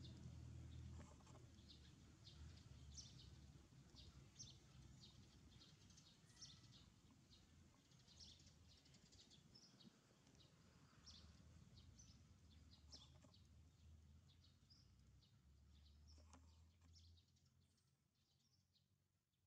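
Near silence: faint outdoor ambience of scattered short bird chirps over a low background rumble, fading out near the end.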